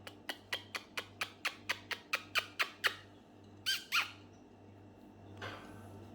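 A ringneck parrot giving a quick run of short sharp calls, about four a second, then two louder squawks about four seconds in.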